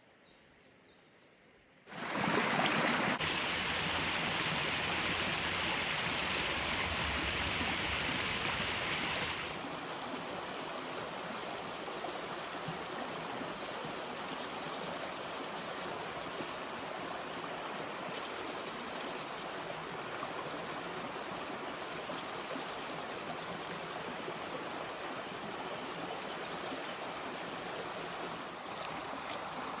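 Stream water running, a steady rushing that starts abruptly about two seconds in and drops a little in level partway through.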